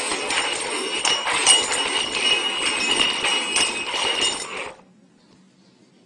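Small jingle bell rattling steadily for about five seconds, then stopping.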